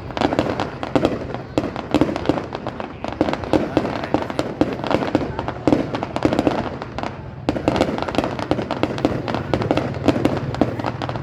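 Aerial fireworks display: a dense, continuous barrage of bangs and crackling bursts.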